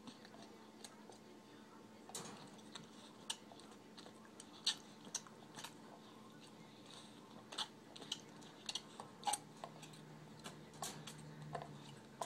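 Bull terrier puppy gnawing a red Kong rubber chew toy: irregular sharp clicks and crunches of teeth on the hard rubber, at uneven intervals.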